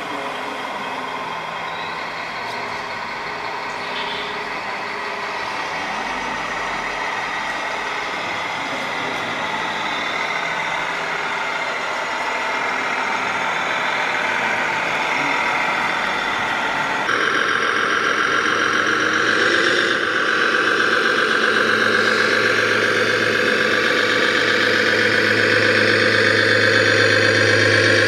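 Radio-controlled model dump trucks running with a steady truck-engine sound: first a King Hauler tipper truck, then, after an abrupt change about 17 s in, a Komatsu HD405 model with a louder, steadier engine drone.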